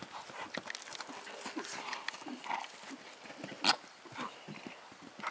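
A horse's hooves on grassy turf, irregular thuds and knocks as it walks and then bucks into a run, with one loud sharp knock about three and a half seconds in.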